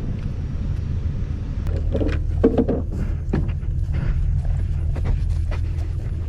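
An engine running steadily with a low rumble, with scattered knocks and rattles, most of them about two to three seconds in.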